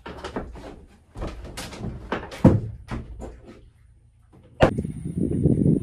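Knocks and thumps on the boat's wooden cabin and deck as the old Volvo Penta diesel engine is worked up out through the companionway, one after another for about three seconds. After a short lull, a sudden loud bang near the end, followed by a second of louder rumbling clatter.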